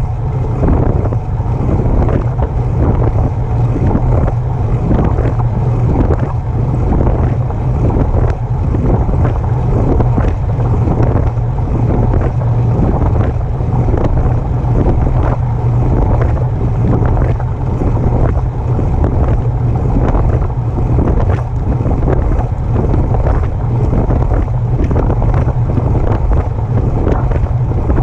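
Specialized Turbo e-bike drivetrain making a rhythmic noise roughly once a second as the pedals are turned backwards, the noise the owner is trying to track down. Heavy wind rumble on the microphone runs underneath.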